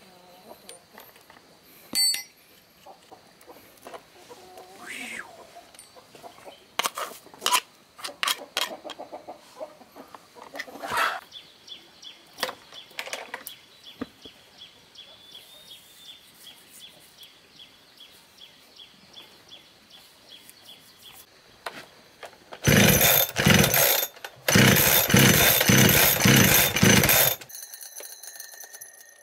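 Chickens clucking amid scattered knocks and clicks, then a power tool runs loudly in several short bursts for about five seconds near the end.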